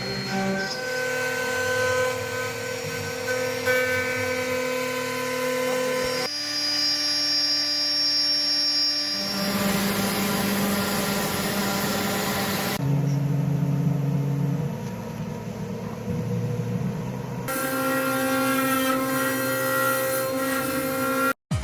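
CNC router running: a steady machine whine with several held tones over a noisy hum. The pitch and mix change abruptly every three to five seconds.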